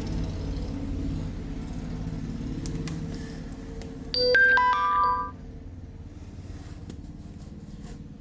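A short electronic chime of several quick notes about four seconds in, lasting about a second, over a low steady background hum.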